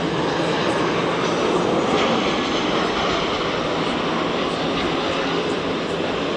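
Jet aircraft engines, a steady loud rushing noise.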